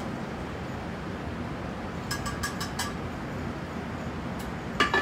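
Light clinks of kitchen utensils, about six in quick succession a little over two seconds in, over a steady rushing kitchen background, with one sharper, louder knock just before the end.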